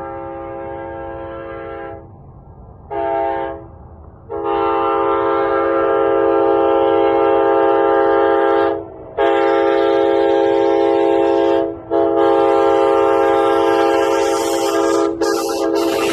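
Nathan K5HA five-chime train horn sounding its chord in separate blasts: a quieter blast at the start, a short one about three seconds in, then three long, loud blasts. A hiss rises under the last blast near the end.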